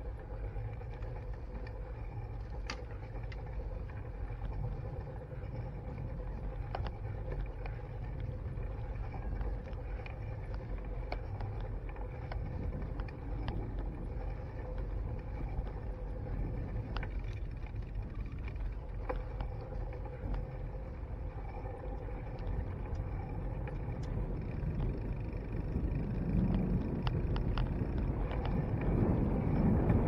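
Mountain bike riding on a paved trail, heard through a handlebar-mounted camera: a steady low rumble of tyres on asphalt with scattered small clicks and rattles. Wind on the microphone grows louder near the end.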